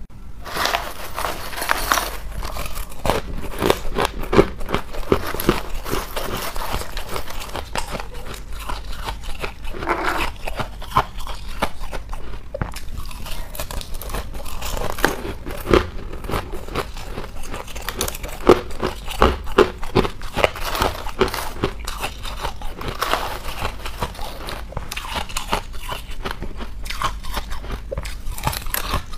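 Thin pieces of frosty pink ice being bitten and chewed, a dense run of sharp crunches and cracks of breaking ice.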